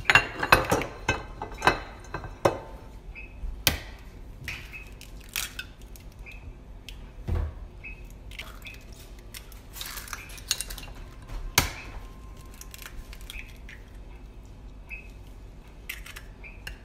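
Knocks and clinks of a ceramic pie dish being set down on a stone counter, then scattered sharp taps as eggs are cracked into the dish.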